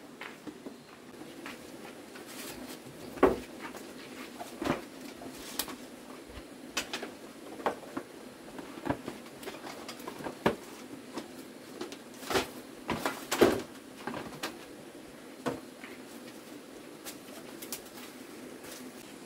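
Scattered sharp knocks and clacks at irregular intervals over a faint steady background, with a louder cluster of them about two-thirds of the way through.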